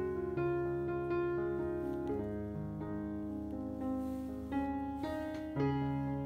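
Background piano music, gentle notes played at an even pace.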